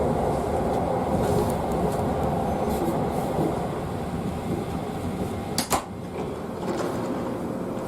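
Steady rumble of a train running, heard from inside the carriage, with a sharp double click about two-thirds of the way through.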